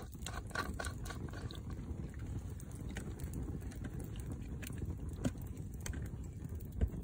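Wood fire crackling, with scattered sharp snaps and pops over a low steady rumble.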